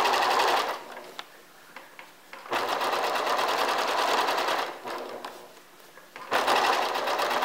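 Electric sewing machine stitching through fabric in three short runs: the first stops just under a second in, the second runs from about two and a half to five seconds, and the third starts a little after six seconds.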